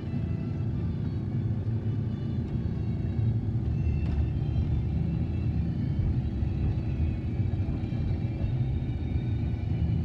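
Car driving steadily down a road, heard from inside the cabin: an even low rumble of engine and tyres.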